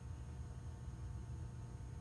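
Go Power IC3000 inverter charger running with a steady low hum and faint steady high tones, with no change through the moment.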